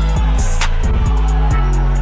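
Background music with a deep bass line and a steady drum beat.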